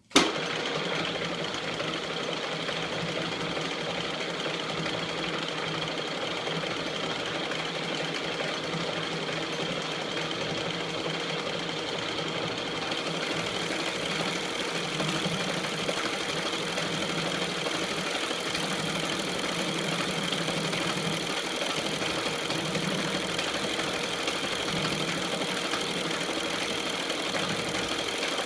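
E1N metal lathe running steadily, a dense machine noise with a steady whine through it, starting abruptly. More high hiss joins a little before halfway.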